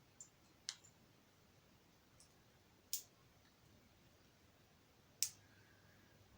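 Plastic Lego pieces clicking as they are handled and pressed together: a handful of short, sharp clicks spaced a second or more apart, the loudest about five seconds in, over near silence.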